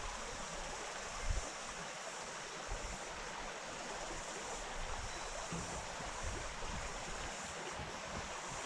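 Small bush stream flowing over rocks, a steady rushing babble, with a brief low thump about a second in.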